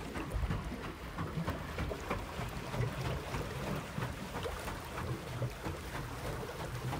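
Small pedal boat moving across calm water: light, irregular splashing and lapping, with a low rumble of wind on the microphone.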